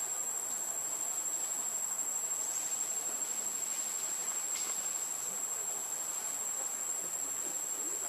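Steady, high-pitched insect chorus: one shrill, unbroken tone, with a couple of faint short chirps.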